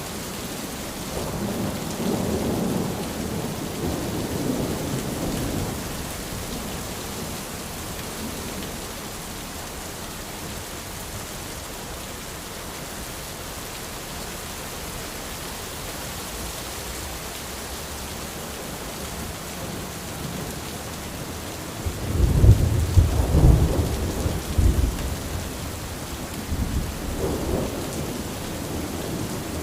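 Steady rain falling on an umbrella, with thunder rumbling: a softer roll in the first few seconds, a louder one about 22 seconds in, and a shorter one near the end.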